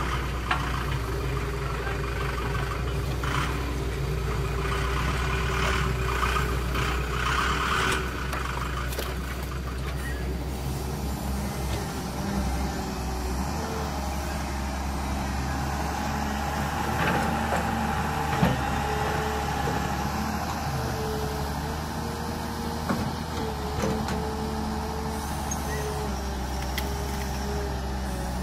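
Radio-controlled model dump trucks and excavator running: a steady low hum under electric motor whines. In the second half the whine keeps starting and stopping as the excavator arm moves.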